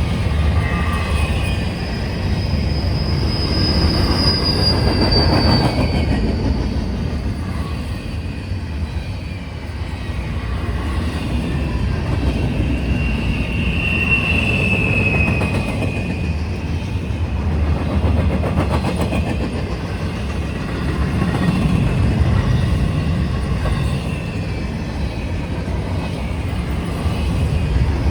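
Freight train rolling past with a steady low rumble of wheels on rail, and high wheel squeal rising out of it twice, each squeal sliding slightly downward in pitch.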